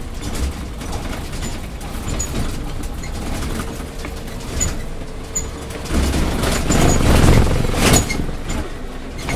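City bus running, heard from on board: a steady engine and road rumble. It swells louder for about two seconds near the end and stops on a sharp click.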